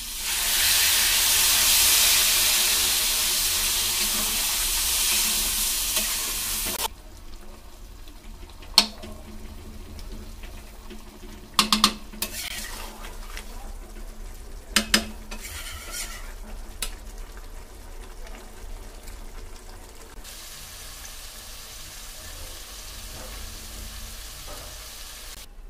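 Water poured into a hot metal kadai of frying bean and potato curry, sizzling loudly for about seven seconds. Then a spatula stirs the gravy over a quieter sizzle, with a few sharp scrapes and knocks against the pan.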